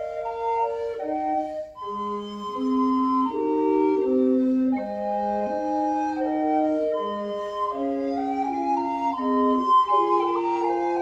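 Recorder quartet, a bass recorder and three smaller recorders, playing a Renaissance madrigal with ornamented diminutions in four-part polyphony. The parts hold overlapping notes, with a short break a little under two seconds in before they come in again together.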